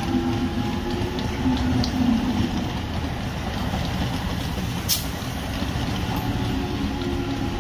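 ICF electric multiple-unit local train running slowly as it pulls out, a steady rumble of wheels and running gear with a low electric hum that fades after about two seconds. One sharp click sounds about five seconds in.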